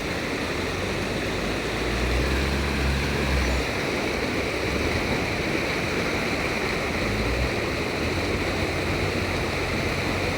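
Floodwater from an overflowing canal rushing steadily, a continuous hiss, with a low rumble about two seconds in and again around seven seconds.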